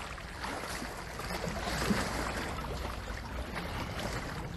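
Steady seaside water ambience: sea water moving and washing as an even noise, with no distinct events.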